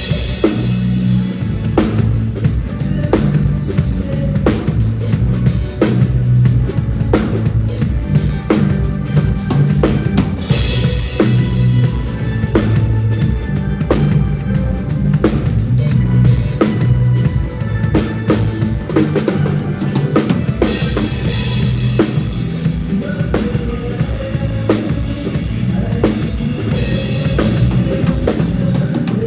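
Band music led by a drum kit: a steady kick and snare beat with cymbals, over a bass line.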